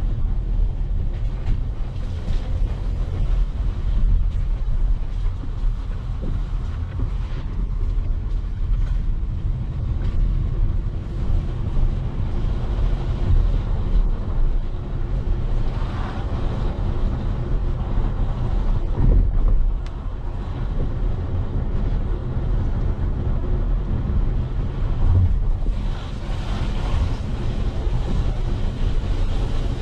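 Steady low rumble of a vehicle travelling through streets, with wind buffeting the microphone.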